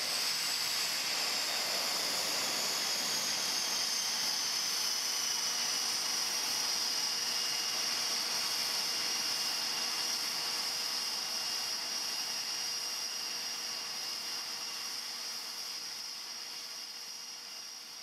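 Aircraft turbine engine whine over a steady rushing hiss; the high whine glides down a little over the first several seconds, then holds steady, and the whole sound fades out toward the end.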